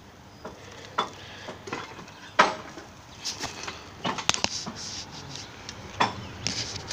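Scattered metallic clinks and clanks of a come-along's hook and chain being handled. The loudest clank comes about two and a half seconds in, with a quick run of clinks around four seconds and another near the end.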